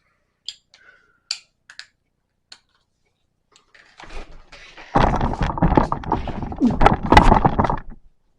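A few light plastic clicks and taps as an eyeshadow compact is handled and opened, then, about four seconds in, a loud stretch of thumps and rubbing that lasts about three seconds.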